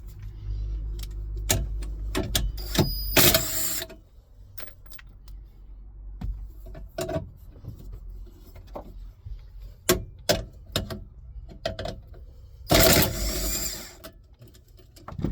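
Scattered clicks, taps and knocks of tools and car trim while the fuel pump control module is unbolted, with two louder bursts about a second long, one a few seconds in and one near the end, that fit a cordless driver spinning out the module's screws.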